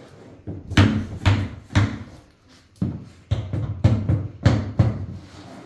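Mallet knocking the black plastic fittings into an IKEA Pax wardrobe frame: about ten sharp knocks in quick runs, with a short pause around two seconds in.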